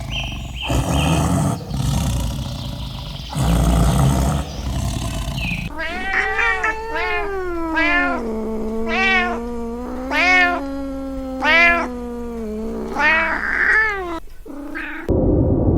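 A cat meowing. Through the middle of the stretch comes a run of about ten short meows that rise and fall in pitch, over a longer drawn-out cry.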